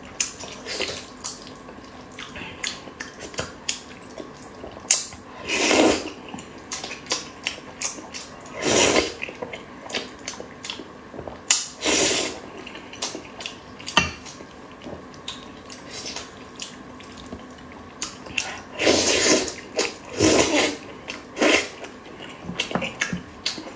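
Close-up eating sounds: wet chewing and lip-smacking with many small clicks, and a louder wet smack or slurp every few seconds.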